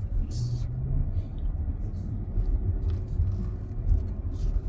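Car driving slowly, a steady low rumble of engine and tyres heard from inside the cabin, with a faint steady hum joining about halfway through.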